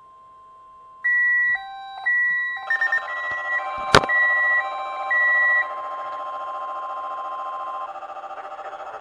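Several weather alert radios going off at once for a NOAA Weather Radio weekly test. The steady 1050 Hz alert tone sounds throughout until near the end. About a second in, a loud on-off electronic beeping joins it, and from about three seconds more alarm tones pile on, with one sharp click about four seconds in.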